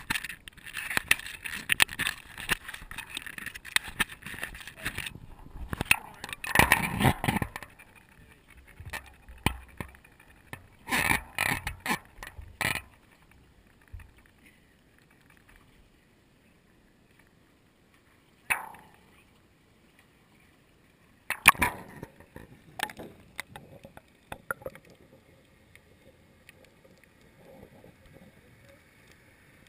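Handling noise from a GoPro camera in its waterproof housing on the end of a fishing pole: irregular knocks, rattles and rubbing as it is swung out, then quiet, a couple of sharp knocks and a few bumps as it goes down into the water, and faint low water noise near the end.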